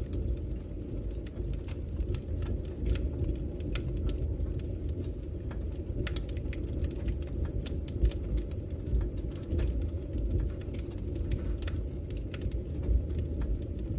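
Campfire burning: a steady low rumble of flame with scattered, irregular crackles and pops from the burning wood, a few sharper pops standing out.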